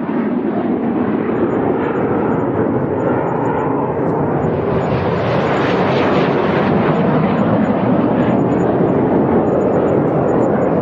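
Jet engine noise of a twin-engine airliner on final approach: a loud, steady rushing drone that swells over the first second and then holds as the aircraft nears.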